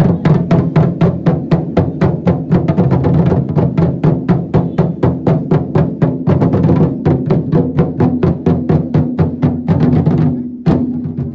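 Lion dance drums beaten in a fast, steady rhythm of about four to five strikes a second. The drumming stops near the end, then comes one last strike.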